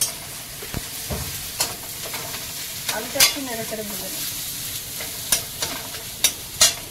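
Potato pieces sizzling in hot oil in a metal kadai while a metal spatula stirs them, scraping and knocking against the pan several times over a steady frying hiss.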